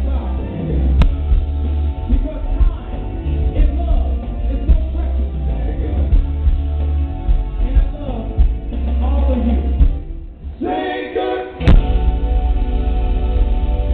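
Live soul-pop band playing with heavy bass, drums, keyboards and horns, and a singer. About ten seconds in the bass and drums drop out briefly, then the band comes back in on a loud hit.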